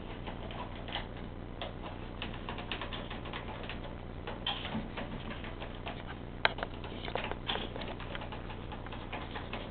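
Green-winged macaw moving about on a white PVC perch: irregular light clicks and taps, with one sharper tap about six and a half seconds in.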